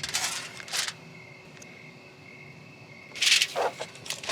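Crickets trilling steadily, with three short rustling bursts from food prep: one at the start, one just under a second in, and a louder one about three seconds in.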